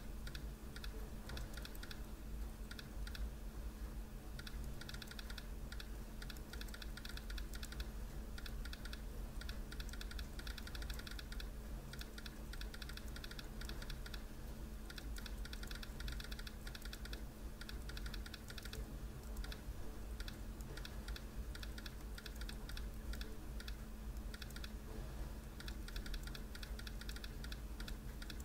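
Laptop keyboard being touch-typed with all ten fingers: a fast, uneven stream of key clicks with a few brief pauses.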